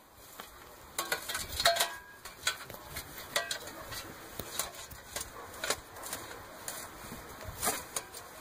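Digging in dry, stony soil with a hand tool: scattered clinks, knocks and scrapes at an irregular pace, busiest about a second and a half in.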